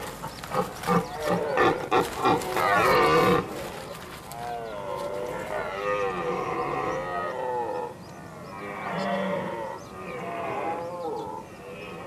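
Red deer stag roaring during the rut: a quick run of grunts that builds into a long, loud roar over the first three and a half seconds, followed by further roars, quieter, rising and falling in pitch.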